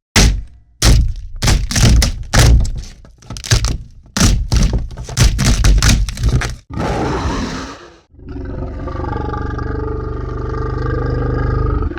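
Action sound effects: a quick run of a dozen or more heavy hits and thuds, then a short noisy crash, then a steady low rumble with a held drone that begins about two-thirds of the way in and cuts off at the end.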